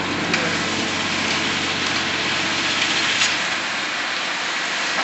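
Steady hiss over the low, even hum of heavy demolition machinery idling, with a couple of faint clicks.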